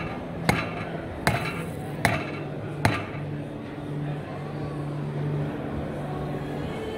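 Rubber mallet striking a metal bar four times, a little under a second apart, driving it through the tread of a truck tyre to puncture it.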